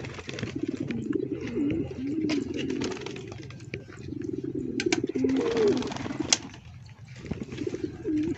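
Domestic pigeons cooing, several overlapping low, wavering coos that rise and fall in pitch, with scattered light clicks and one sharp click about six seconds in.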